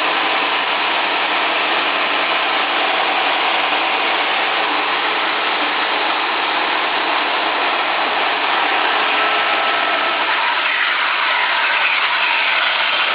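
Meber SR900 industrial resaw band saw, with 36-inch solid wheels and no tires, running with a steady, dense mechanical noise that turns somewhat harsher about ten seconds in.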